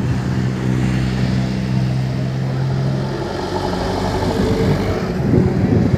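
Minibus engine running close by: a steady hum for about three seconds, then a shifting, less even sound as the vehicle moves along the road.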